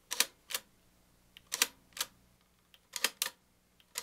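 Bolex 16 mm reflex film camera's release, set to single-frame, being pressed to click off one frame at a time: about three sharp double clicks, roughly a second and a half apart.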